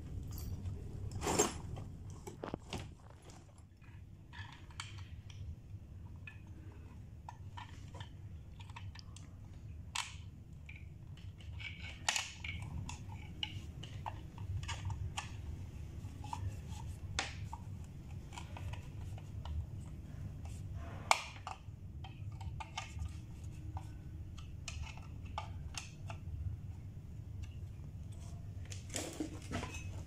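Scattered plastic clicks and knocks from handling and fitting the red plastic housing of a break-glass fire alarm manual call point, over a steady low hum.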